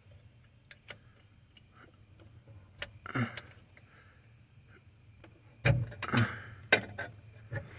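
Scattered small clicks and light knocks of hand tools and parts being handled under a dashboard, with a few louder knocks a little past the middle.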